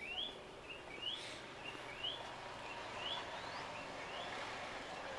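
A bird calling over and over, a short note followed by a quick rising chirp, about once a second.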